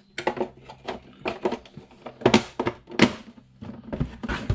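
Plastic housing of a JNC660 jump box being pressed and worked back together by hand: a run of knocks and clicks as the cover's tabs are lined up, the sharpest knocks about two and three seconds in.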